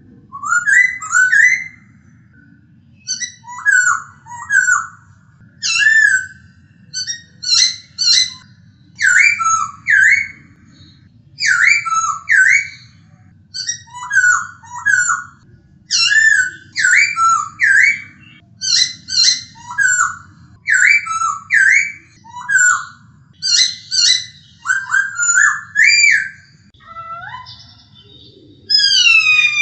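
Black-throated laughingthrush (Poksay Hongkong) singing: loud, clear whistled phrases, each a quick run of two or three sweeping notes, repeated about once a second with short gaps. A faint low hum lies underneath.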